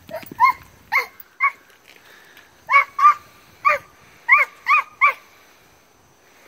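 A dog barking in short, high-pitched yaps, about nine of them in uneven bursts, stopping about five seconds in.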